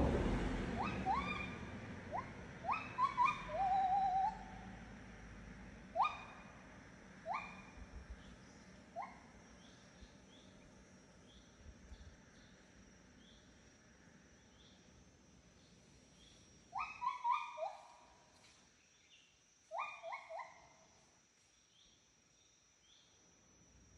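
Birds calling: short, sharp rising whistled notes, some single and some in quick runs of three or four, over a steady high insect drone. A low rumble fades away over the first few seconds.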